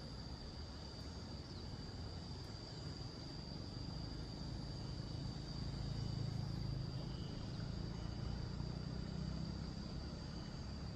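A low engine rumble that swells about halfway through and then eases off, over a steady high-pitched drone of insects.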